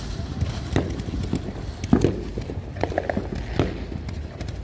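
Small fireworks popping and crackling: irregular sharp pops, a few louder cracks scattered through, with no big bang.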